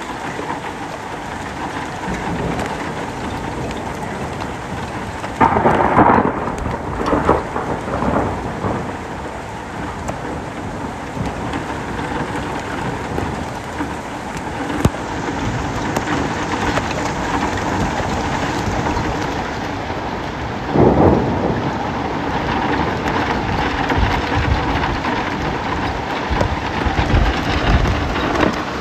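Heavy rain falling steadily on the street. Thunder cracks suddenly about five seconds in and rolls on for a few seconds. A second clap comes about twenty seconds in, followed by low rumbling near the end.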